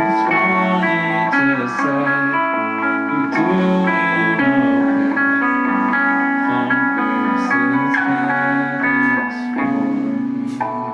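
Live indie rock band playing an instrumental passage: electric guitar notes ringing over drums, with cymbal hits throughout.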